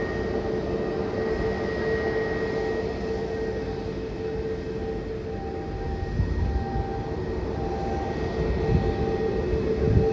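Twin jet engines of a taxiing Airbus A320-family airliner running at idle: a steady whine over a low rumble.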